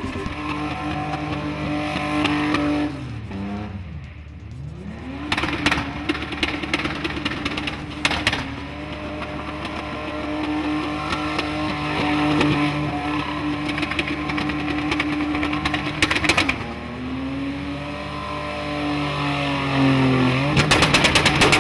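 Car engines held high in the revs while drifting, tyres squealing on the pavement. The engine note drops and climbs back a few seconds in, dips and rises again near the end, with a few sharp crackles along the way.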